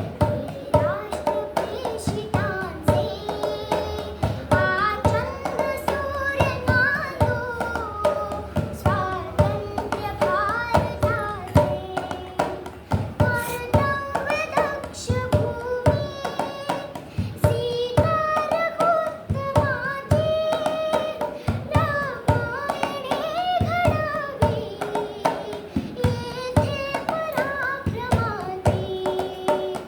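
A young girl singing a melodic song in a sustained, ornamented voice, over a fast, steady percussive beat.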